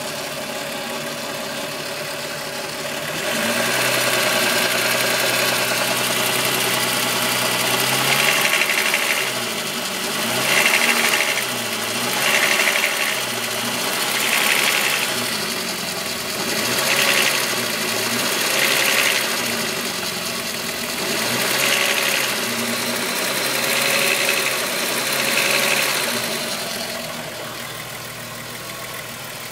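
Volkswagen Golf VR6 2.9 engine idling, then raised to a higher steady speed a few seconds in, then blipped up and down about nine times at roughly two-second intervals before settling back toward idle. The owner hears a rubbing timing-chain noise from this engine, made louder after replacing the upper hydraulic tensioner screw.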